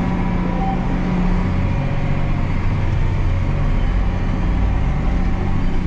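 The John Deere F4365 spreader's engine runs with a steady low drone, heard from inside the cab, as the machine starts spreading with its spinners running. One short beep sounds about half a second in.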